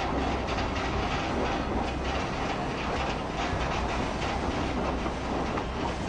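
Earthquake shaking: a steady deep rumble with continuous rattling and clattering.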